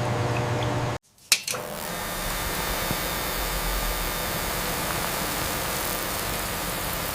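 Steady rushing noise of a running machine, like a blower or vacuum. It cuts out about a second in, a sharp click follows, and the hiss then runs on evenly.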